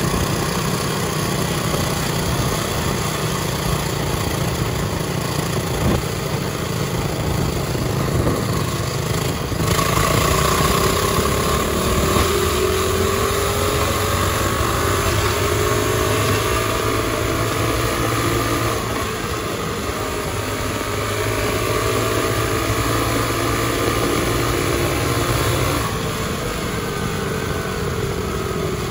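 Mini bike's small engine running hard at road speed, with wind rushing over the microphone. About ten seconds in it gets louder, and its pitch rises and falls gently as the throttle changes; it eases off slightly near the end.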